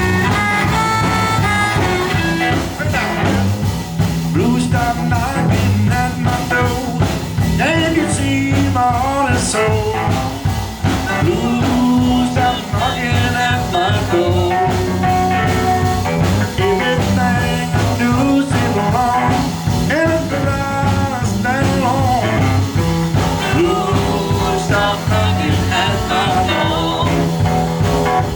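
Live blues band playing a swinging, catchy blues number, with a steady repeating bass line under the lead lines.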